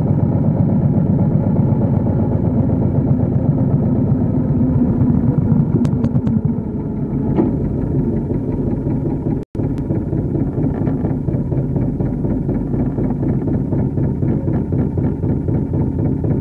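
Small motor boat's engine running steadily, a dense low chugging. The sound cuts out for an instant about nine and a half seconds in.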